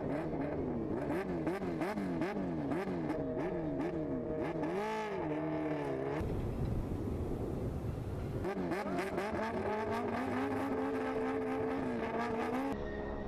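High-revving racing engines. First an engine revs up and drops back over and over, about two times a second. Then after a cut, an engine runs up in pitch and holds at high revs.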